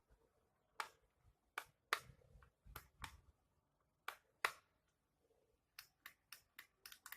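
Sharp clicks and taps of hard objects being handled. A scattered handful come first, some with a dull thump beneath, then a quicker, even run of six clicks near the end.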